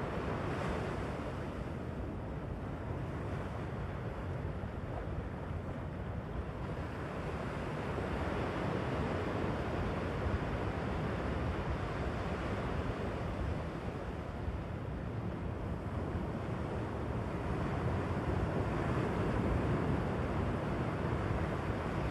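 Ocean surf breaking and washing up a sand beach: a continuous rush of water that swells louder a couple of times as waves come in.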